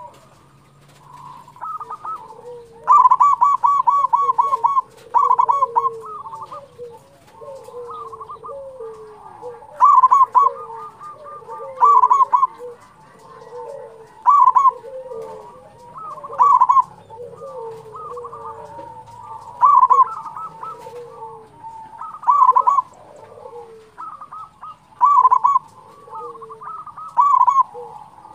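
A local zebra dove (perkutut) singing actively, with loud phrases of quick staccato cooing notes every two to three seconds. About three seconds in there is a rapid run of about eight notes. Softer, lower falling coos continue underneath.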